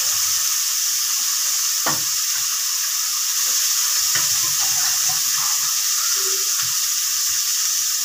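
Food frying in hot oil in a pan, a steady sizzle, with two light knocks of a utensil about two and four seconds in.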